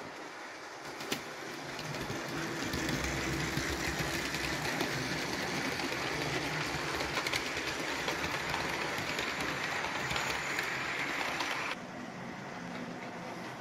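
OO gauge model train, a model locomotive hauling a rake of Bachmann Mk2a coaches, running past close by: steady motor and wheel-on-rail running sound that builds as it comes near, with a single click about a second in. Near the end the sound drops suddenly to a quieter running sound.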